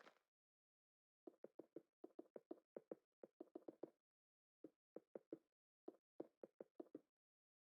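Faint rapid knocking, in five quick runs of four to eight knocks each with short pauses between.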